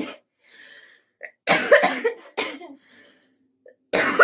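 A person's coughing fit: a cough right at the start, a longer run of coughs about a second and a half in, and another bout starting near the end.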